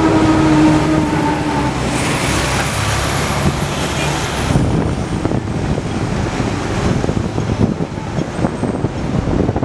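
Hong Kong double-decker tram running along street tracks, heard from on board: a steady rumble and rattle of the wheels on the rails. A held horn note fades out in the first second or two. A high hiss with a thin squeal comes in about two seconds in and dies away around the fifth second.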